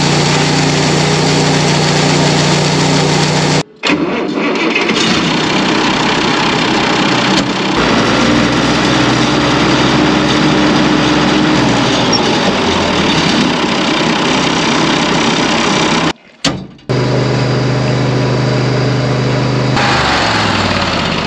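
Farm machinery engines running steadily, in clips cut together with sudden breaks about four and sixteen seconds in: a grain auger's small engine and a tractor at work.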